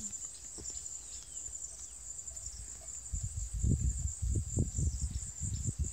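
Insects chirring steadily, a high pulsing buzz. From about three seconds in, irregular low rumbles come in on top and are the loudest sound.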